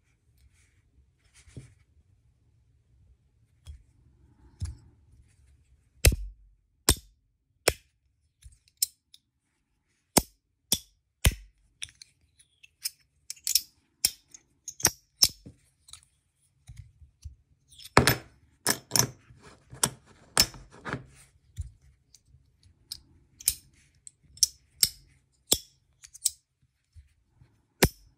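Brass magnetic slider fidget toy worked in the hand: sharp clicks as its brass plates snap into place under the magnets, irregular and one to three a second, with a quick run of clicks about eighteen seconds in. The first few seconds hold only faint handling.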